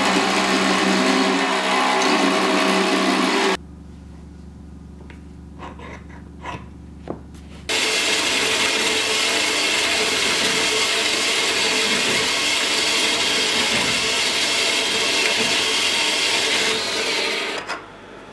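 A belt grinder runs with a steel sword blade pressed against the abrasive belt, then cuts off suddenly after about three and a half seconds. A low steady hum with a few light knocks follows, and then a metal-cutting bandsaw runs steadily through a steel block for about nine seconds before dying away near the end.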